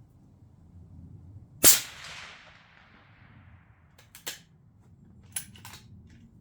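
A single rifle shot about a second and a half in, with an echo that trails off over about a second. A few sharp mechanical clicks follow later.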